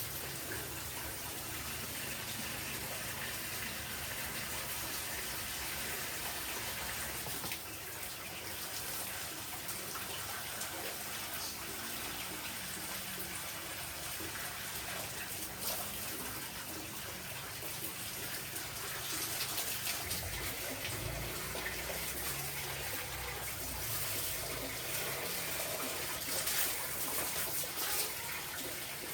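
Water running steadily from a tap, with a few small knocks and clicks.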